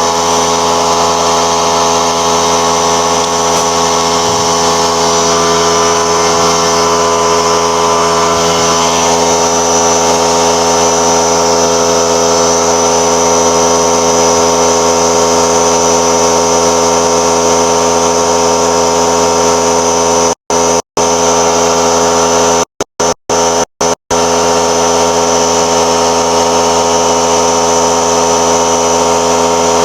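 A motor running steadily with a constant pitched hum. The sound cuts out completely for a few split-second gaps about two-thirds of the way through.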